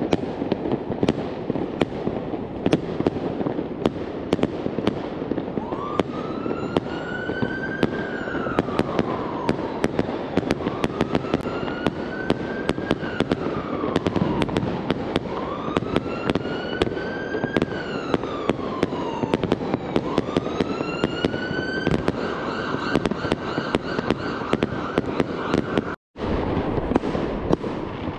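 New Year's Eve fireworks: a dense, constant crackle of firecrackers and bangs from bursting rockets. From about six seconds in a siren wails over them, rising and falling slowly four times, then holds one steady tone until the sound cuts out briefly near the end.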